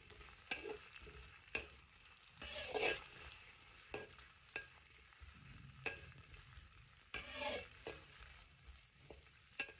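Metal spatula scraping and knocking against a wok at irregular strokes, about once a second, as green and red pepper strips stir-fry in oil with a faint sizzle.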